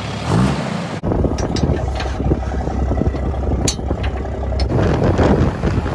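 Pickup truck engine idling close by, a steady low rumble, with a few sharp clicks and clinks as a tow strap is hooked on. Wind buffets the microphone near the end.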